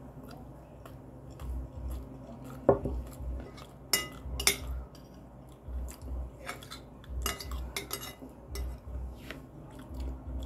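Metal spoon and fork clinking and scraping against glass plates in scattered sharp clinks, with chewing underneath.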